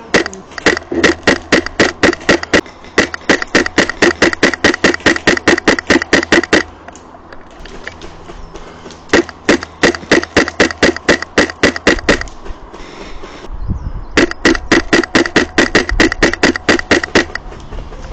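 MTW Wolverine HPA airsoft rifle firing three long strings of rapid shots, about six sharp pops a second, with short pauses between the strings.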